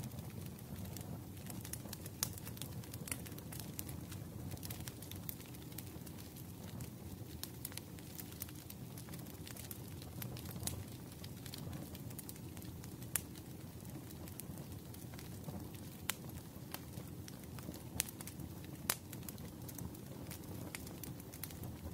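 Wood fire crackling: a steady low rumble of burning logs with frequent sharp pops and snaps, a few of them louder.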